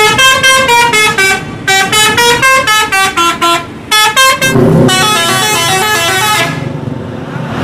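Tour buses' multi-tone musical horns, the 'telolet' kind, playing quick runs of short stepped notes again and again, with a bus engine running underneath. The horn runs stop shortly before the end, leaving mostly engine and traffic.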